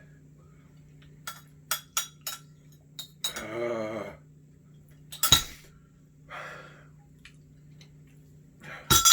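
A spoon clinking against a bowl while the last of the noodles are scooped up: a run of light clinks, then two sharp, louder knocks, one about five seconds in and one at the very end. A short groan about three seconds in.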